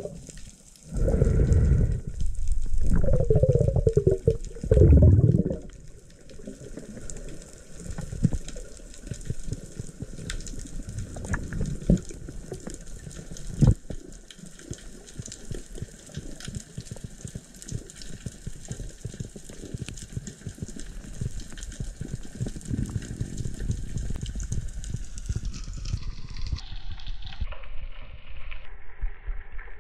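Underwater sound through a diving camera: a few seconds of loud rushing, gurgling water as the diver goes down, then a steady faint crackle of many small clicks near the rocky bottom, with one sharper click about halfway through.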